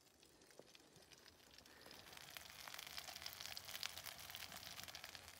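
Sausages sizzling faintly in a frying pan, a soft crackle with fine spitting ticks that fades in from about two seconds in.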